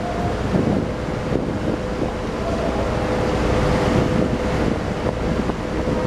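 Wind buffeting the microphone over the steady low drone of moored purse-seine fishing boats' machinery, with a constant whine running through it.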